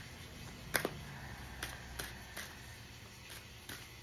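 A stack of oracle cards being shuffled and handled by hand: a run of light, sharp card clicks and snaps, irregular, about one or two a second.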